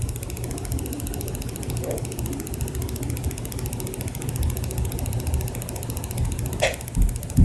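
A steady low hum of background noise, with two short knocks near the end.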